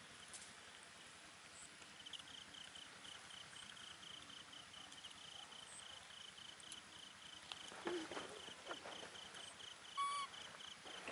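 Faint insect chirping: a rapid, even trill of pulses at one high pitch, starting about two seconds in. A short high call sounds once near the end.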